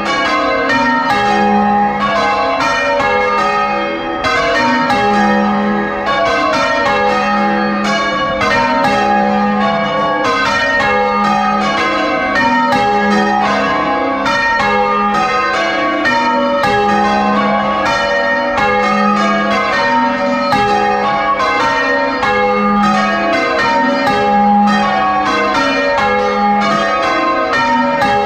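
A ring of six church bells, tenor 9 cwt in A♭, rung full-circle in change ringing and heard close up from inside the bell chamber. It is a loud, unbroken, even stream of strikes, several a second, with the deepest bell coming round about every two seconds.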